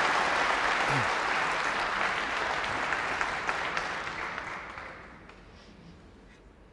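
Arena audience applauding a shot, the clapping dying away about five seconds in.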